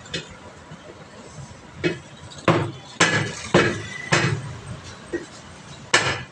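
A run of about six blows from a hand tool striking a car tyre's bead against its steel wheel rim, starting about two seconds in at roughly two a second, each with a short ringing tail. This is the tyre bead being broken loose by hand so the tyre can come off the rim.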